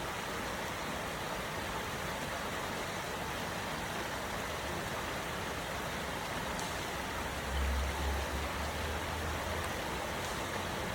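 Waterfall's steady rush of falling water. A brief low rumble comes in about seven and a half seconds in.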